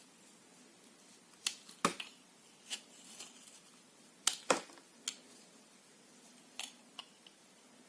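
Soap being cut with a knife: a string of sharp, crisp cuts and cracks at uneven intervals, about nine in all, the loudest two close together about four and a half seconds in.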